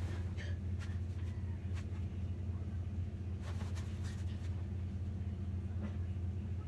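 Steady low hum in a bedroom, with a few soft rustles as book pages and bedding are handled.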